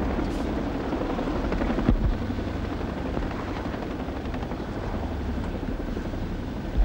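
Two Boeing CH-47 Chinook tandem-rotor helicopters hovering low: a steady rotor and turbine noise, with a brief low thump about two seconds in and another near the end.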